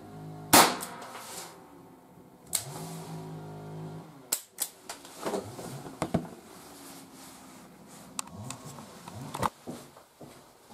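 A single shot from an ALFA 461 revolver firing a 4 mm Flobert rimfire round, a sharp crack about half a second in. A smaller knock follows about two seconds later, then a run of light mechanical clicks and knocks.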